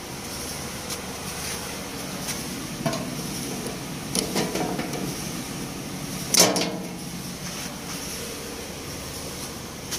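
Sharp metallic clanks and knocks from pliers and wiring being handled against a truck's steel body, several of them, the loudest about six and a half seconds in, over a steady mechanical hum.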